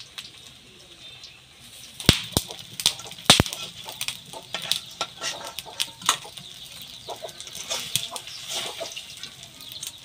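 Metal spatula striking a black iron wok three times, sharply, about two to three and a half seconds in, then clinking and scraping as fried taro pieces are lifted out into a steel bowl, over a steady sizzle of frying oil.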